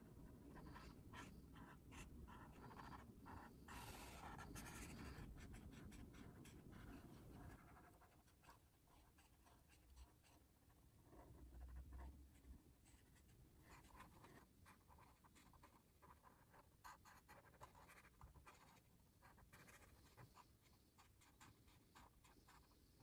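Faint, quick scratching strokes of an Ohuhu brush-tip alcohol marker on a coloring book page as a background is filled in, busier in the first seven seconds or so and then fainter.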